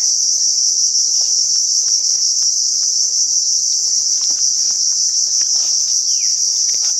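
Dense, steady, high-pitched insect chorus, with a few faint clicks and a short falling chirp near the end.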